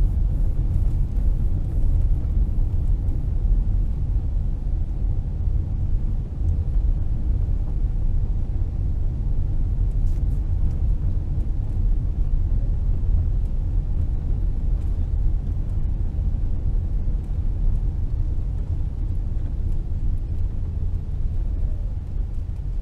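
Car driving along a paved road, heard from inside the cabin: a steady low rumble of engine and tyres.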